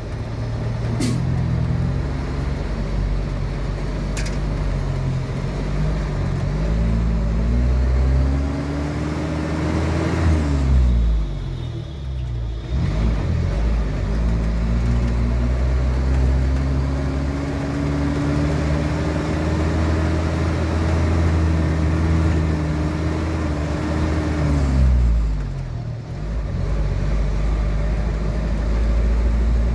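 Engine of the moving vehicle carrying the camera through city traffic, running loud and steady. Its pitch climbs slowly as it speeds up, then falls away twice, about a third of the way in and again near the end, as it eases off.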